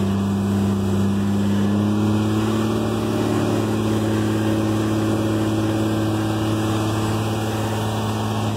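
Articulated dump truck's diesel engine, heard from inside the cab, running steadily at high revs with a slight rise in pitch about two seconds in. The automatic transmission won't upshift, so the engine is held up near 2,200 rpm.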